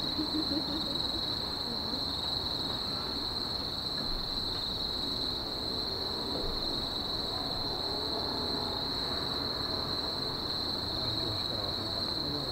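Steady, unbroken high-pitched chirring of night insects such as crickets, with faint distant voices murmuring beneath it.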